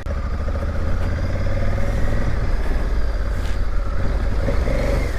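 Honda Africa Twin motorcycle engine running steadily at low speed, with a dense low rumble, as it works its way over an off-road obstacle.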